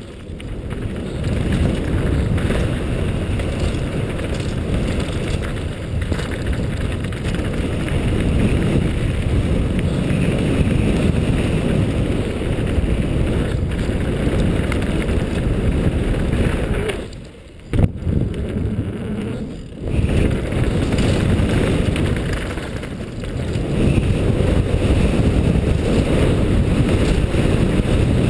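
Wind buffeting the microphone over the steady rumble and rattle of a mountain bike's tyres and frame on a fast descent of a rough dirt trail. About 17 seconds in the noise briefly drops away and ends in a single sharp knock.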